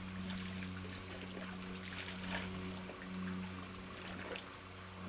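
A steady low mechanical hum with a few evenly spaced pitches. Over it are faint trickling water and scattered light ticks.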